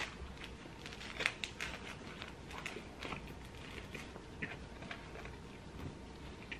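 A man chewing a big bite of hamburger: faint, irregular soft clicks and smacks of the mouth.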